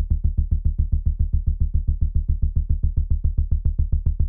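Serum software synthesizer playing a pulse bass: one low bass note chopped into even sixteenth-note pulses, about eight a second. Its upper tones thin out in the middle and come back near the end.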